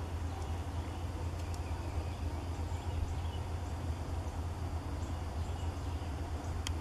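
Woodland ambience: a steady low rumble with faint, scattered bird chirps.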